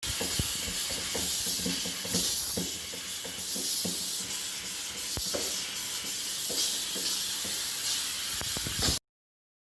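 Steam cleaner jetting steam in a steady hiss, with scattered light clicks and knocks. It cuts off suddenly near the end.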